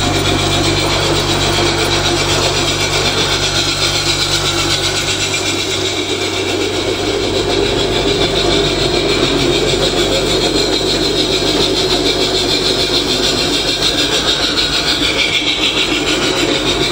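Large-scale (G gauge) model trains running along the track, wheels rolling over the rails under a steady electric motor hum. The sound changes about six seconds in.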